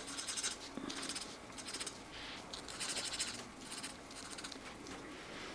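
Felt-tip markers scratching across paper in a colouring book: a run of about six short strokes, each a brief dry scratch.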